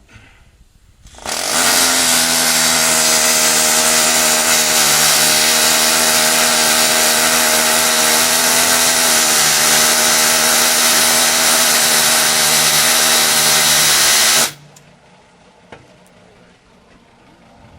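Electric drill running steadily under load, drilling into metal. It starts about a second in and stops abruptly after about thirteen seconds.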